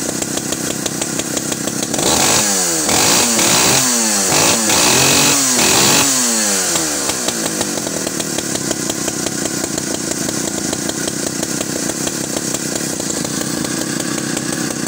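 Vintage Alpina 070S two-stroke chainsaw engine idling, then about two seconds in revved up and down several times in quick succession for a few seconds, before settling back to a steady idle.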